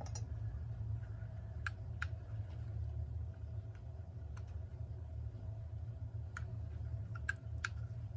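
Light, scattered clicks of a small precision screwdriver and fingertips working the hands off a clock dial, over a steady low hum.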